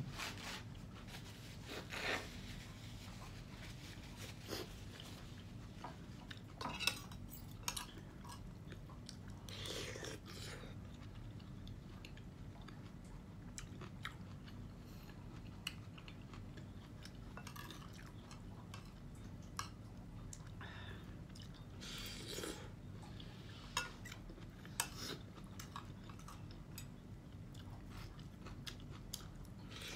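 Close-up eating sounds: chewing, with a spoon and fork clinking and scraping on a ceramic plate in scattered short clicks over a steady low hum.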